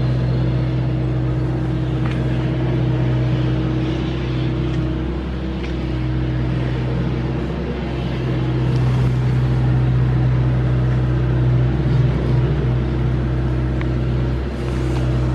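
Steady low mechanical hum, even in pitch and level.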